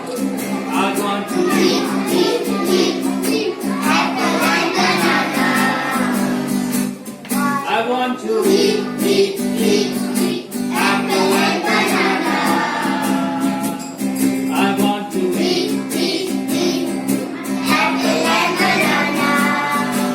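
A song sung over steady instrumental accompaniment, the sung phrases breaking off and restarting every second or two.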